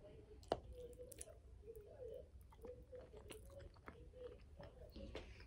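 A person chewing a mouthful of macaroni and cheese: small wet mouth clicks throughout, with one sharp click about half a second in.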